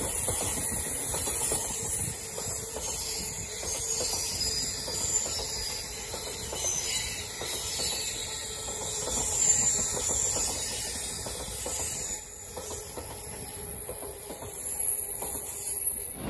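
Container freight train's flatcars rolling past at close range, wheels clattering over the rails, with a steady thin high-pitched squeal and hiss above the rumble.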